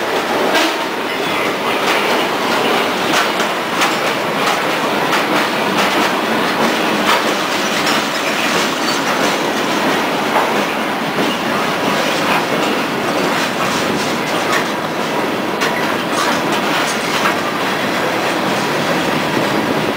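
Freight train of log flatcars rolling past at close range: steady noise of steel wheels on rail, with frequent clicks and clatter as the wheels cross rail joints.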